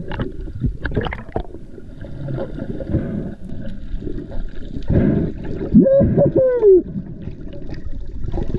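Underwater sound on an action camera during a spearfishing dive: low gurgling and water rush with scattered clicks. About six seconds in there is a muffled, wavering voice-like call that rises and then falls in pitch.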